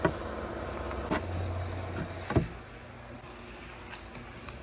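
Steady low drone of construction machinery, with three light knocks as wooden marble-run rails are handled and fitted together, at the start, about a second in and near the middle.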